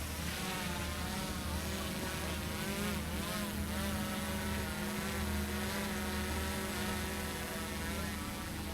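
A motorboat's engine running steadily, its drone wavering slightly in pitch, over a hiss of wind and water.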